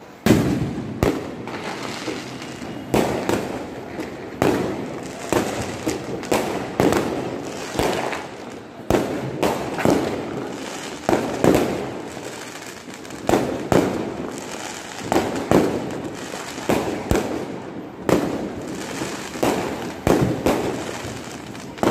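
Diwali fireworks and firecrackers going off in an irregular run of bangs, roughly one or two a second, each ringing out briefly after the crack.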